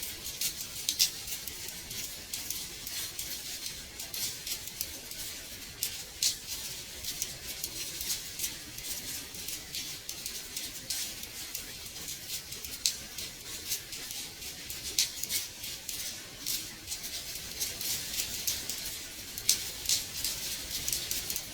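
Gentle rain tapping on a window pane: a steady high hiss with many irregular, sharp drop taps, a few louder than the rest.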